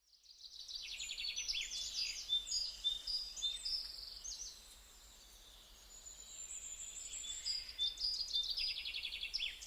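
Many small birds chirping and twittering together in a busy chorus. It fades in at the start, thins out for a moment midway, then grows busy again near the end.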